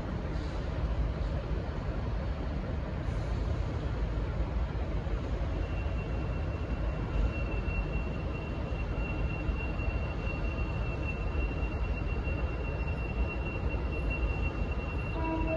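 Diesel-hauled passenger train running with a steady low rumble. About a third of the way in, a thin, steady, high-pitched squeal joins it and holds, typical of wheels or brakes squealing as a train comes into a platform.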